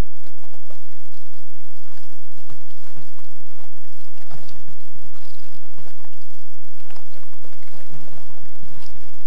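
Water splashing and dripping around a sit-on-top kayak: many small, irregular splashes and drips over a steady low rumble.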